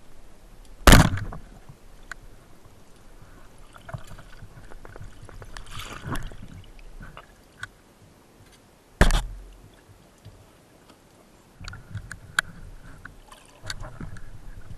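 Underwater, a wooden band speargun fires with one loud sharp crack about a second in, and a speared fish is then struggled with amid rustling, bubbling and small clicks. A second loud knock comes about nine seconds in.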